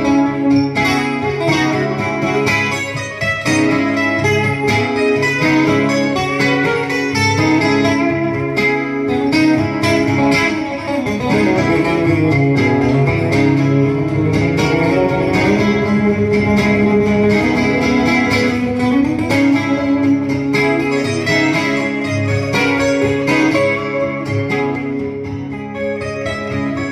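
Two acoustic guitars playing an instrumental break of a rock song, with no singing. Many quick plucked attacks sit under a moving melody line.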